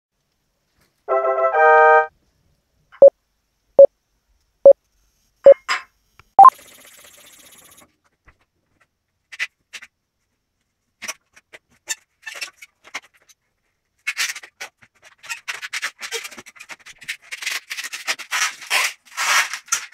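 A short two-note electronic chime, then five evenly spaced electronic beeps, the last one higher, like a countdown. Then a latex modelling balloon being twisted into a balloon animal: scattered squeaks and rubbing that grow dense and busy over the last few seconds.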